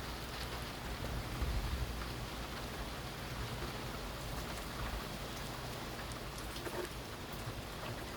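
Steady rain with many small drops ticking on a surface over a low rumble.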